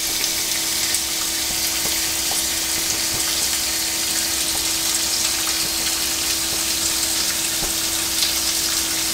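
Thin pork loin slices sizzling in sesame oil in a frying pan, a steady hiss, with a steady low hum underneath.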